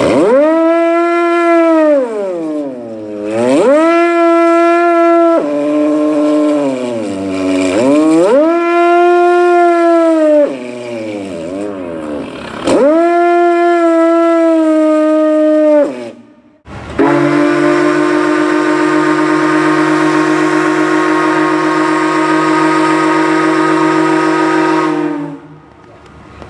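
A Foster siren wails three times, each time winding up to a held high note and sliding back down. It is followed by a three-chime boat whistle blowing one steady, chord-like blast of about eight seconds.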